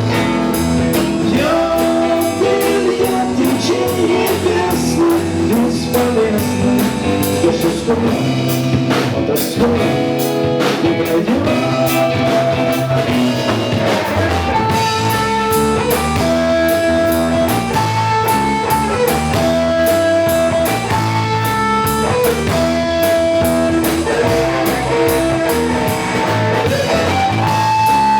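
Instrumental passage of a blues-rock song: a lead guitar plays long held notes that bend up and down, over a rhythm guitar, bass and drum kit.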